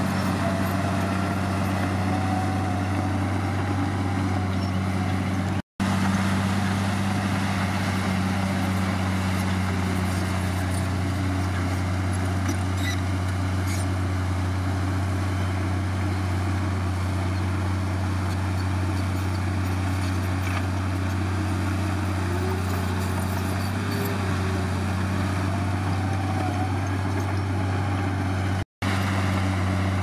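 Komatsu D53P bulldozer's diesel engine running with a steady low drone, and a faint whine that rises and falls now and then. The sound cuts out briefly twice, once about six seconds in and once near the end.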